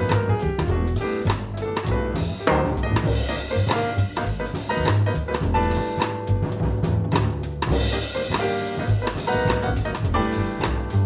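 Live jazz from a piano-led group, with the drum kit prominent and piano playing over it, heard from a cassette tape recorded off an FM broadcast.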